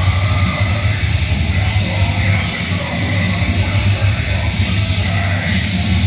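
Loud rock entrance music with electric guitar, playing continuously through the arena's sound system.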